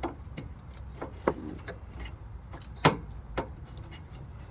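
Scattered light knocks and clicks of engine-bay parts being handled by hand, about six in all at irregular spacing, the loudest a little before three seconds in, over a faint steady low rumble.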